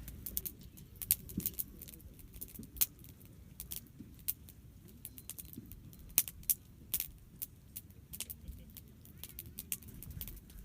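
Wood campfire crackling, with irregular sharp pops and snaps over a low rumble.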